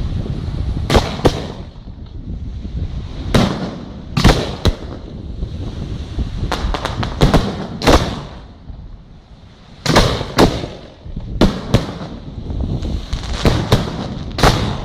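Large aerial firework shells bursting: a dozen or so sharp booms at irregular intervals, several in quick pairs, with a quick run of smaller bangs near the middle and a low rumble between them.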